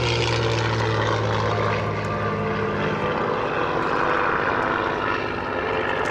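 Piston-engined propeller warbird flying past, its engine drone falling slightly in pitch as it goes by and dropping away about three seconds in, leaving a rushing noise.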